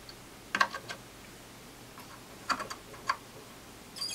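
A few light clicks and taps of metal tweezers and a soldering iron tip against a circuit board and its components: one about half a second in, a pair around two and a half to three seconds, and another near the end.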